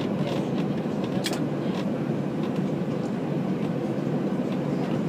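Steady low cabin noise inside an airliner taxiing to its stand: engines at taxi power and the airframe and wheels rolling over the apron. A single sharp click about a second in.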